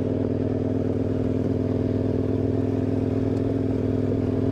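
KTM 1090 Adventure R's V-twin engine idling steadily, with an even, unchanging note.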